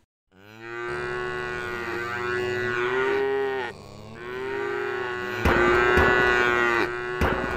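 Cartoon tractor mooing sound effects: two long, drawn-out moos with several overlapping pitches. About five seconds in, a louder noise with clicks comes in under the second moo.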